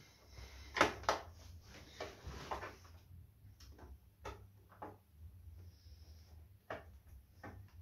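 Hand screwdriver and screws clicking and knocking against the plastic back panel of a flat-screen TV as the screws are put back in: a string of scattered sharp clicks with some scraping handling noise, the loudest pair about a second in.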